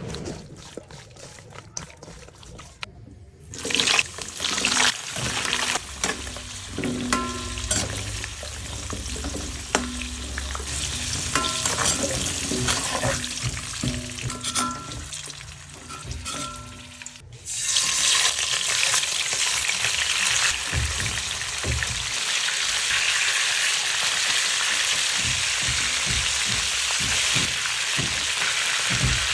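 Food frying in oil in a pan, sizzling, with a utensil clicking and scraping as it is stirred. After a break about two-thirds of the way in, a steadier, louder sizzle takes over.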